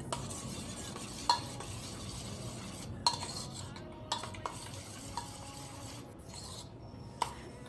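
Steel spoon beating eggs with drumstick leaves in a stainless steel bowl: a steady wet swishing and scraping, with a short clink of spoon on bowl now and then.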